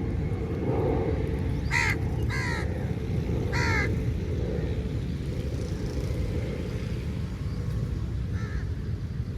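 A crow cawing: three harsh caws in the first four seconds and a fainter one near the end, over a steady low rumble.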